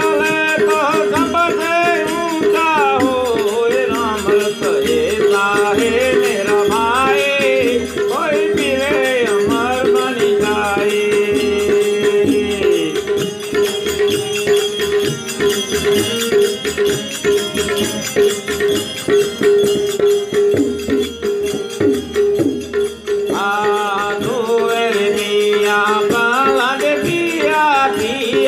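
Gujarati devotional bhajan music: a wavering melody over a steady held drone, with rattling hand percussion keeping the rhythm.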